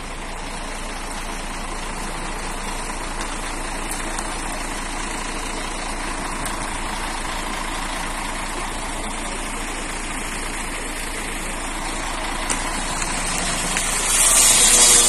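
Fire truck's engine running steadily. Near the end a loud hiss of spraying water comes in over it.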